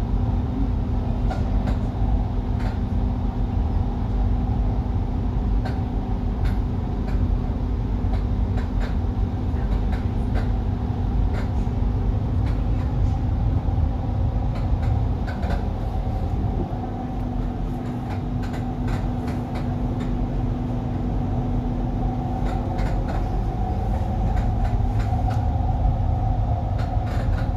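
Cabin noise of a driverless Doha Metro train running along its track: a steady low rumble with a steady motor hum, and scattered clicks and rattles. It eases off slightly for a few seconds in the middle.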